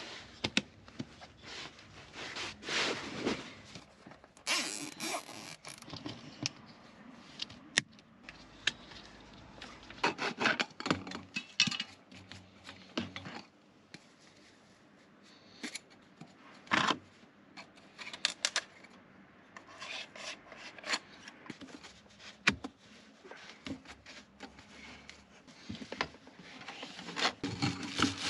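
Hands fitting diesel-heater parts: scraping and rubbing against wood panelling and flexible plastic ducting, with many scattered clicks and knocks.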